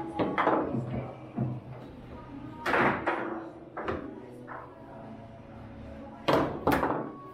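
Table-football game in play: the hard ball and the plastic figures on steel rods strike with sharp clacks and knocks, the loudest about three seconds in and a quick pair near the end, over background music and voices.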